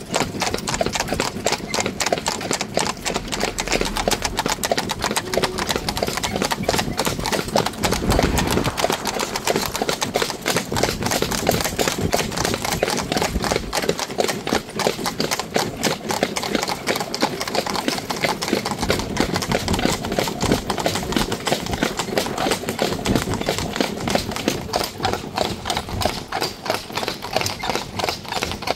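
Carriage horses' hooves clip-clopping at a trot on an asphalt road: a pair of Fjord horses in harness with other horses close by, the strikes overlapping in a quick, steady patter.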